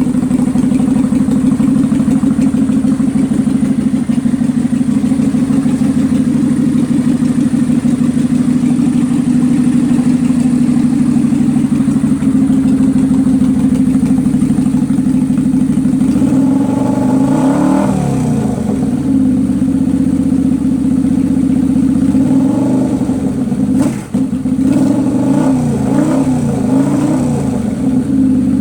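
Kawasaki Vulcan 800 Classic's V-twin engine idling steadily, then revved up and back down several times over the second half, with one brief sharp break about three-quarters of the way through. The engine has a misfire that the owner traces to the carburetor, slapping back at the air filter assembly.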